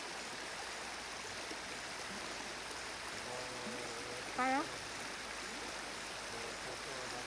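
River water running over a shallow riffle, a steady rush. About halfway through, a short, slightly rising call stands out as the loudest moment.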